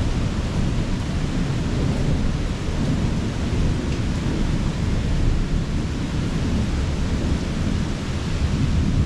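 Thunderstorm: steady heavy rain with a continuous low rumble of distant thunder underneath, swelling and easing slightly.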